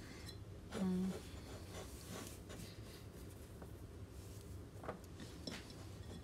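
Quiet handling noise of polyester-blend rope being drawn and wrapped around a ceramic pot: faint rubbing, with a light tap about five seconds in. A short hummed voice sound comes about a second in.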